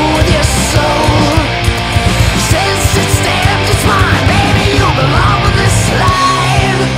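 Heavy metal song: electric guitars over a steady pounding of drums, with pitch-bending guitar lines in the middle.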